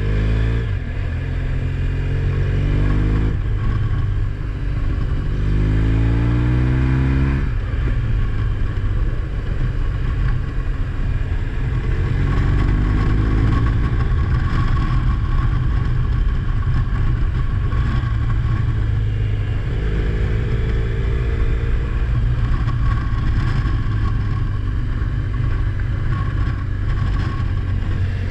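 A road vehicle's engine running under way, rising in pitch as it accelerates and dropping back at gear changes several times, over a steady road drone.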